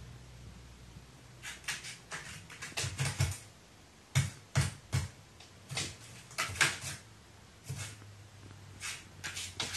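A pet crow pecking and knocking at objects: irregular sharp taps and knocks, some with a dull thud, in quick clusters of two or three, beginning about a second and a half in.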